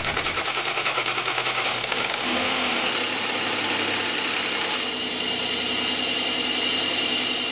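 Rebuilt Porsche Cayenne EA837 supercharged V6 idling steadily just after being started.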